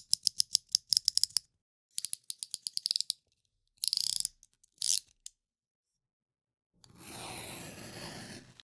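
Utility knife (snap-off box cutter) with its blade slider ratcheted in runs of quick clicks, several clicks a second in a few separate strokes. After a pause comes a scratchy rasp lasting about two seconds, typical of the blade drawn across a material.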